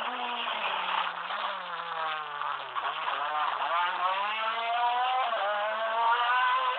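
A rally car's engine: its note falls as the car slows, then climbs steadily under hard acceleration, broken once by a quick upshift a little past five seconds in.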